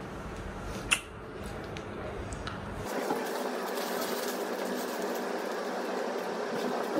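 Steady indoor room noise, a low hum and hiss, with a single sharp click about a second in; about three seconds in the noise turns louder and steadier, with a faint hum underneath.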